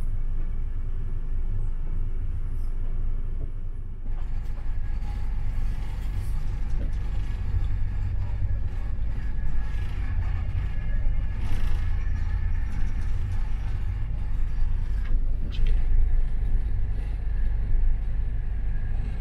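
Inside a sleeper carriage on a moving passenger train at about 140 km/h: a steady low rumble of wheels on track with a rushing noise and occasional knocks. The sound changes abruptly about four seconds in.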